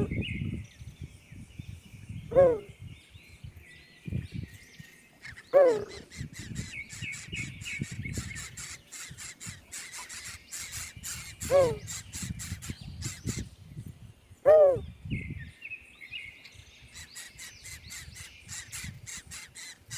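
A bird calling loudly in single short calls, five of them spaced a few seconds apart. Steady high chirping of other birds or insects runs behind them.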